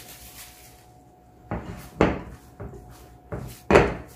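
Four dull knocks and thuds, the loudest near the end, as risen yeast dough is punched down and worked by hand in a glass bowl.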